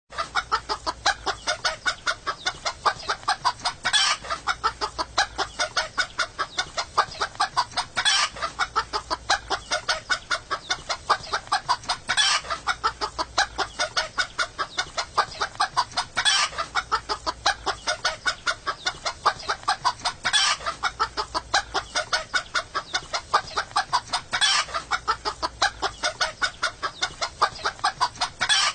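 Clucking-chickens ringtone: a recording of chickens clucking rapidly, several clucks a second. The clip is looped, so the same few seconds repeat about every four seconds, with a brief click at each seam.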